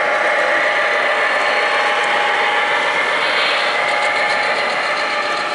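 O-scale model diesel locomotive running past with its train, a steady, loud engine-like drone with no breaks.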